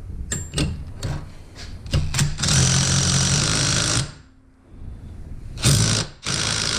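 Cordless impact wrench hammering in short bursts as it runs down the top nut on a Miata rear strut and coil spring assembly held in a spring compressor. There are a few light clinks, then one long burst of about a second and a half, then two shorter bursts near the end.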